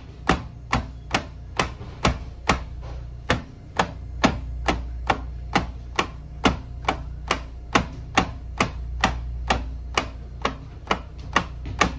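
Instep of a sock-covered foot kicking a plywood board over and over in haisoku geri (instep kick) conditioning: sharp, even knocks at about two and a half a second.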